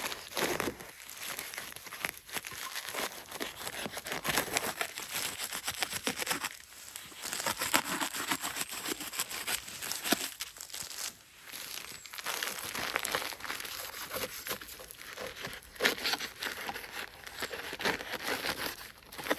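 Foil-faced insulation sheet crinkling and tearing as it is handled and cut with a knife: uneven scratchy rustling with brief pauses.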